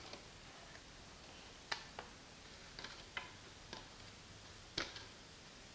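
A handful of faint, sharp clicks and taps, irregularly spaced: a plastic tub and wooden spatula knocking against a non-stick kadhai as chopped coriander leaves are tipped in.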